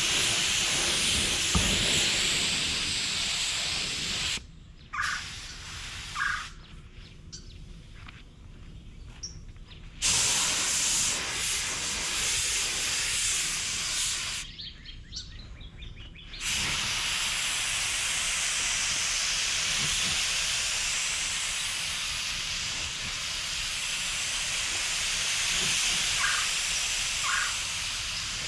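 Gravity-feed spray gun hissing as it shoots primer, in long passes. The air cuts off twice when the trigger is let go: about four seconds in, for some six seconds, and again about fourteen seconds in, for two.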